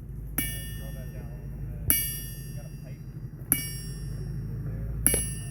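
Hand hammer striking hot steel on an anvil, four ringing blows about a second and a half apart as the bar is hammered flat. A steady low hum runs underneath.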